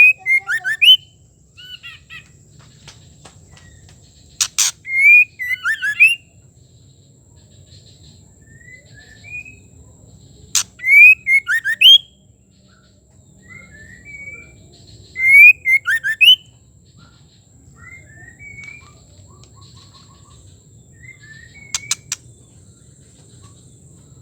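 Female white-rumped shama calling: short phrases of quick rising and falling whistled notes, each opening with a sharp click, repeated every five or six seconds. Softer single notes come between the phrases.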